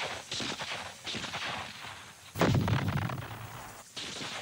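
Scattered gunshots, about five separate shots, each with a short echoing tail. The loudest comes about two and a half seconds in and is heavier than the rest.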